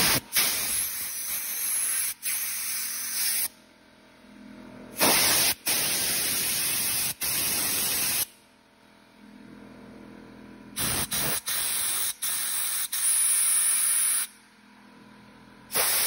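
Compressed air blown from a brass-tipped blow gun through the jets and passages of a Honda CRF450R carburetor to clean it: four long hissing blasts of about three seconds each, the third cut into short pulses by quick releases of the trigger.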